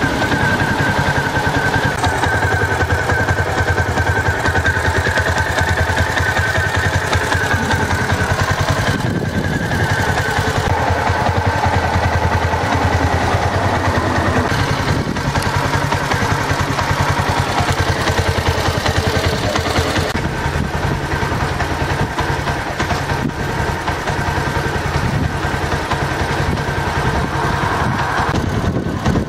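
Suzuki GN250's air-cooled single-cylinder four-stroke engine idling steadily.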